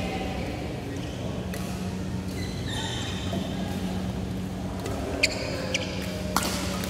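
Badminton rackets striking a shuttlecock in a rally: sharp cracks, three in quick succession in the last two seconds, with a squeak or two near the middle, over a steady low hum.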